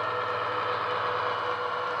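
Bachmann Class 70 model locomotive's DCC sound decoder playing diesel engine sound through a small EM1 speaker as the model runs. It is a steady engine drone with a held mid-pitched tone.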